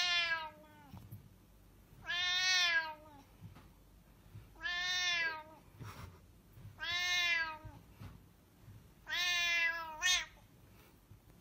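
A cat meowing five times, long drawn-out meows about two seconds apart, each rising and then falling in pitch.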